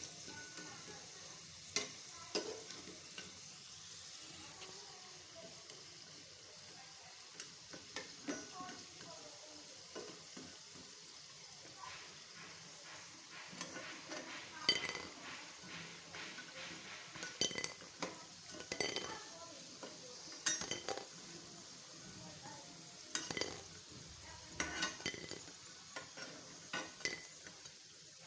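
Food frying in hot oil in a pan with a steady sizzle, broken by scattered clinks and scrapes of a utensil against the pan.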